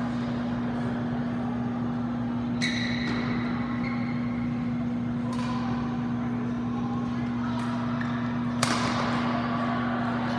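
Badminton rally: racket strikes on the shuttlecock, three sharp echoing hits a few seconds apart, the last the loudest, with a brief shoe squeak on the court floor at the first. A steady low hum runs underneath.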